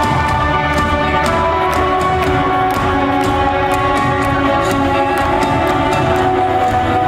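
Live rock band playing an instrumental passage without vocals: sustained guitar chords over bass and drums, with cymbal or drum hits falling in a steady beat.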